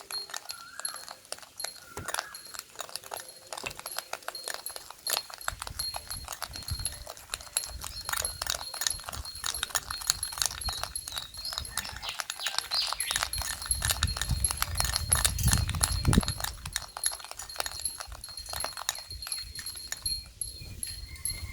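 Dalgona coffee mixture (instant coffee, sugar and hot water) being whisked in a bowl: rapid, dense clicking of the whisk against the bowl, with a low rumble joining in a few seconds in and growing loudest past the middle.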